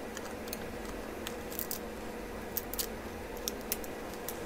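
Light, sharp clicks, about ten scattered through, from steel tweezers working a flex-cable connector off a smartphone's main board, over a steady low hum.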